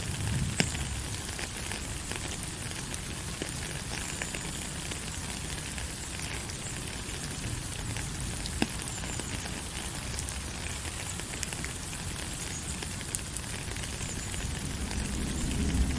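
Steady rain falling, an even hiss with scattered sharp drops and pops; a low rumble swells near the end.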